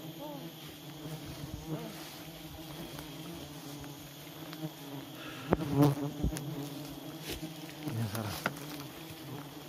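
Bees buzzing close by in a steady hum, with footsteps crunching through dry leaf litter and twigs snapping; the loudest crack comes about six seconds in.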